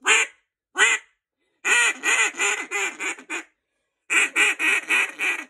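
Rolling Thunder Original single-reed cut-down duck call blown in loud quacks: two single quacks, then two quick runs of six or seven quacks, each run getting quieter as it goes.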